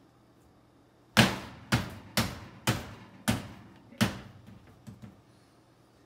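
Cast iron skillet knocking on a glass-ceramic stovetop as dough is pressed down into it by hand: six sharp knocks about half a second apart, each ringing briefly, then two fainter ones near the end.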